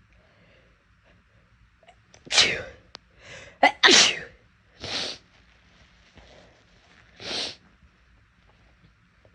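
A person sneezing loudly, a quick run of sneezes beginning about two seconds in, the first ones the loudest and two weaker ones following.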